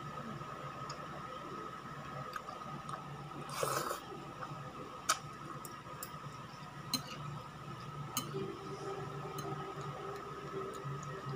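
A person eating noodles with chopsticks: a short slurp about three and a half seconds in, and a handful of light, sharp clicks of chopsticks against the bowl, over a steady low hum.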